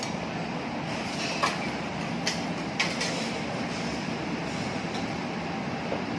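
A steady hiss from the teppanyaki griddle, with three sharp metal clinks of a spatula about a second and a half in, a little after two seconds, and just before three seconds.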